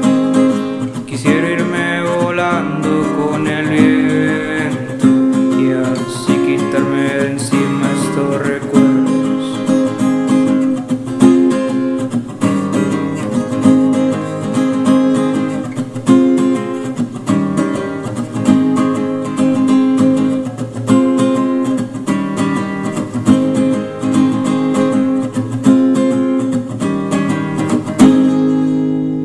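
Music led by acoustic guitar, plucked and strummed in a steady rhythm. Near the end a final chord is struck and left ringing.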